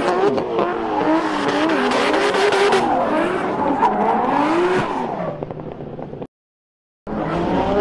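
Two drift cars' engines revving hard in a tandem slide, their pitch rising and falling over and over as the drivers work the throttle. Near the end the sound fades, then cuts out completely for under a second before coming back.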